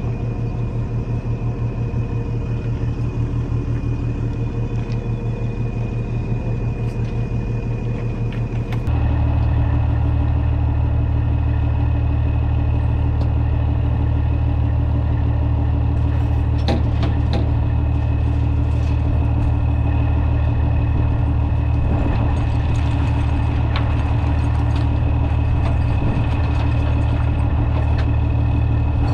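Heavy diesel engine running steadily, with a thin steady whine above it. About nine seconds in it turns suddenly louder and deeper, then holds steady again.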